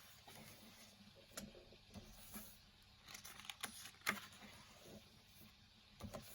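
Pages of a paper colouring book being turned and handled: soft rustles and light taps, a cluster of them about three to four seconds in. Under them a faint steady hum from a turtle tank's pump.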